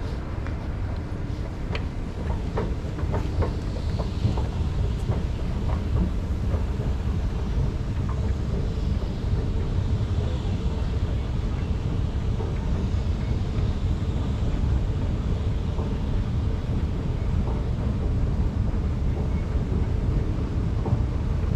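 Steady low rumble of an underground metro station and a running escalator, with a few light clicks and taps in the first several seconds.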